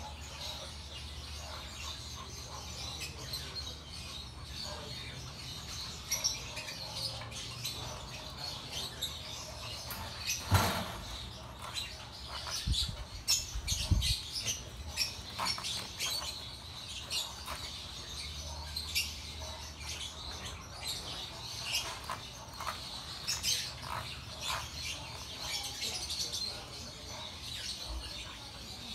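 Small birds chirping over and over in high, short notes, over a steady low hum, with a few dull thumps about ten and fourteen seconds in.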